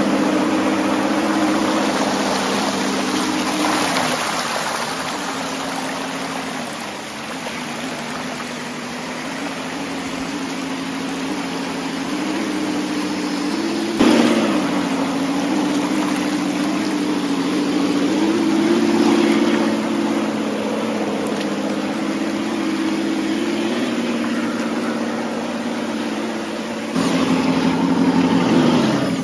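Scale RC Jeep Wrangler crawler's electric motor and geared drivetrain whining steadily, its pitch drifting with the throttle, over the rush and splash of stream water as the tyres churn through it. The sound jumps abruptly about halfway and again near the end, and the whine falls in pitch at the very end.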